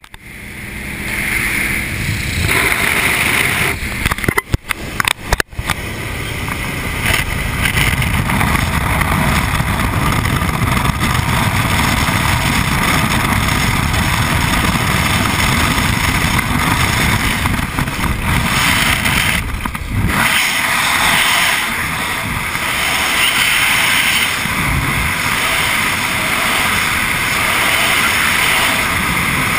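Jump-plane engine and wind noise at the open aircraft door, cutting out briefly a few times about four to five seconds in. From about twenty seconds in the low rumble drops away, leaving the steady rush of freefall wind over the camera's microphone.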